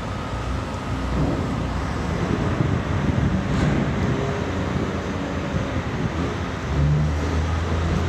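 Diesel engine of a semi tractor hauling B-train double container trailers, running as the rig rolls slowly toward the gate. Its low rumble grows louder about three-quarters of the way in as the truck comes closer.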